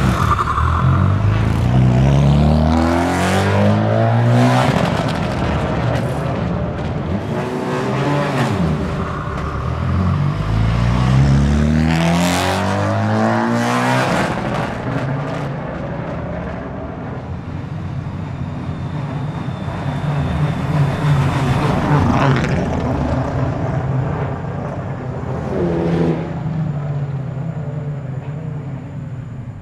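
Honda Civic Type R FL5 TCR race car's 2.0-litre turbocharged four-cylinder engine pulling away and accelerating, its revs rising twice in the first half. In the second half the engine is heard less loudly, running steadily out on track.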